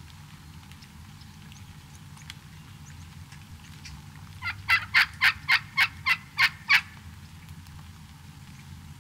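Turkey calling: a run of about nine loud, evenly spaced notes over a little more than two seconds, starting about halfway through.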